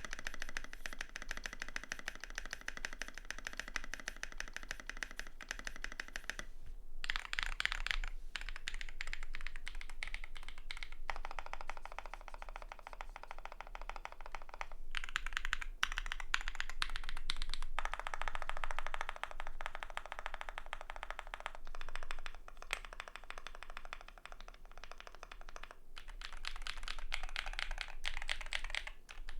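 Continuous fast typing on a Keychron Q6 full-size mechanical keyboard with a steel plate, lubed BSUN Raw switches, greased stabilisers, Tai-Hao PBT doubleshot keycaps and tape and polyfill dampening mods: a dense stream of keystrokes, broken by a few short pauses.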